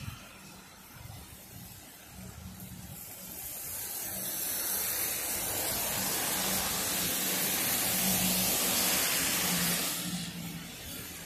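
Car tyres hissing through water on a rain-wet road as traffic passes close by. The spray noise swells over several seconds, peaks, then dies away near the end, over a faint steady low hum.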